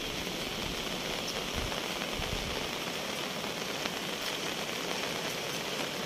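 A steady, even hiss of water from the Chorad river running in flood.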